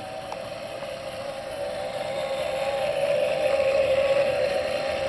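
Motorized fire tornado rig running: its 12-volt motor, overvolted to 32 volts, whirs steadily as it spins the mesh cylinder, with the rushing of the whirling flames. The sound grows louder over the first three seconds.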